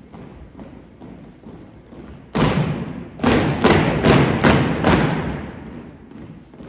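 A drill team marching in step on a hardwood gym floor: soft, steady footfalls, then, about two and a half seconds in, a loud unison stomp followed by five more in quick, even succession, ringing in the hall before fading.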